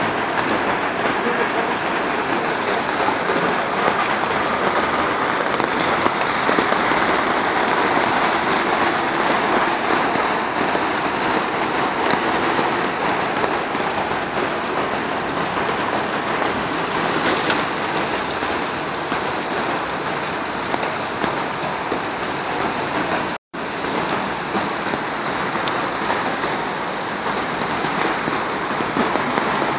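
Steady, even rush of water from heavy rain, with a split-second dropout about two-thirds of the way through.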